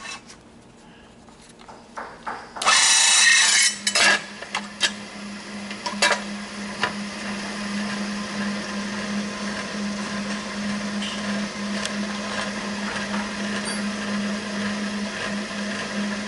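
A burst of metal clatter about three seconds in, then a Bridgeport variable-speed J-head milling machine runs with a steady, even hum from its 1.5 HP motor and belt pulleys, with a few clicks along the way.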